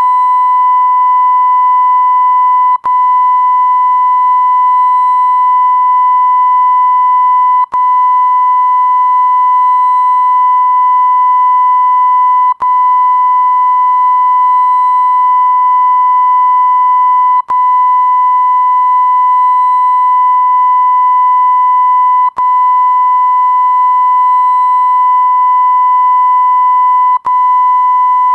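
Continuous censor beep: a steady electronic tone near 1 kHz, held long and broken by a brief click-like gap about every five seconds.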